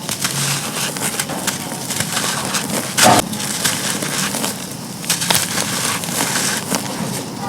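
Gritty chunks of charcoal being crushed and crumbled: a steady dry crackling and grinding, with one loud crunch about three seconds in.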